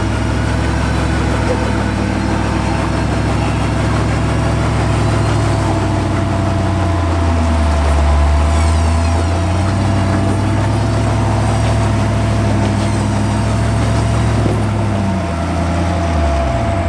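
Jeep engine running at low revs, its pitch dipping and coming back up around the middle and again near the end, with a thin steady whine throughout.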